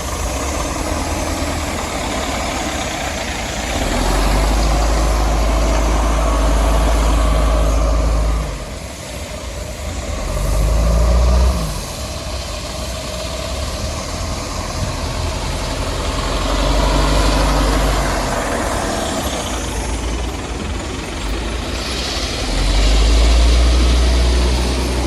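Heavy machinery engine running steadily. A deep drone swells louder for a few seconds at a time, four times over, as the engine comes under load and eases off.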